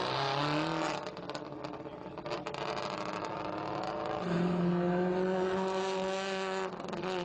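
Subaru Impreza rally car's turbocharged flat-four engine revving hard as the car accelerates and slides on dirt, rising in pitch during the first second, then easing off. About four seconds in it climbs to a high, steady note and holds it for nearly three seconds before dropping off near the end.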